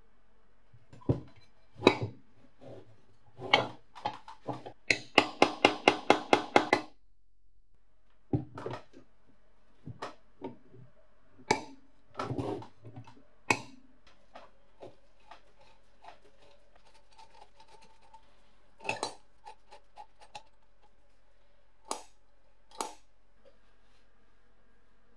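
Metal parts of a restored antique box iron clicking and clinking against each other and the workbench as it is reassembled by hand with a screwdriver. About five seconds in comes a quick run of roughly a dozen ringing clicks, followed by scattered single knocks and clinks.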